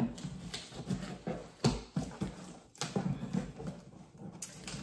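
A large cardboard shipping box being handled: irregular knocks, taps and rustles on the cardboard, with a louder thump about a second and a half in.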